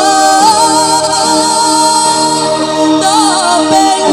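A young male singer's high, ornamented dangdut-style vocal through a handheld microphone over musical accompaniment. He holds one long note with a wide vibrato, then starts a new curling phrase near the end.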